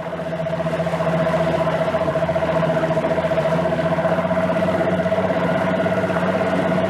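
Boat's outboard motor running at a steady speed, building up to a steady level in the first second.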